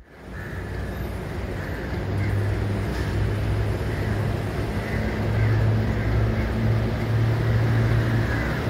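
Class M4 (ALCo MX620) diesel locomotive engine running with a steady low drone and a fainter high whine above it, growing a little louder as the locomotive slowly approaches.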